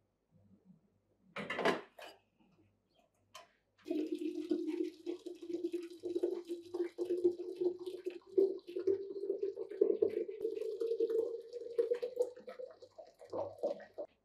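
Tea poured in a steady stream from a teapot into a glass carafe, starting about four seconds in. The pitch of the pour slowly rises as the carafe fills. A short knock comes earlier, about a second and a half in.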